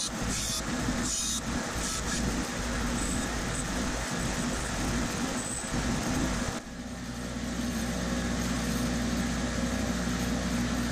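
Bench grinder running steadily while a small steel tool bit is held against the wheel, a grinding hiss over the motor's hum. About six and a half seconds in the bit is lifted off and the hiss drops away, leaving only the grinder's motor running.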